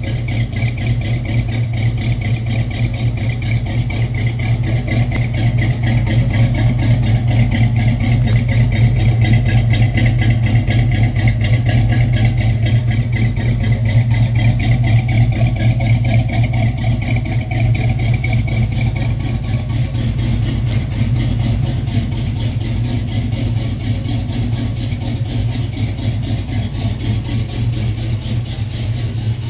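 1966 Chevy fleetside shortbed pickup's engine idling steadily, at an even, unchanging pitch.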